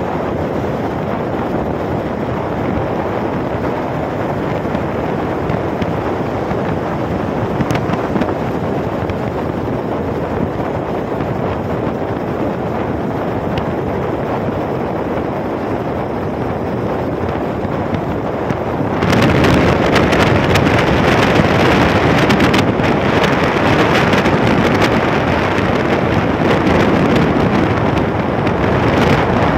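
Wind rushing over the microphone of a phone on a moving motorcycle, a steady roar of wind and road noise. About two-thirds of the way through it abruptly gets louder and hissier.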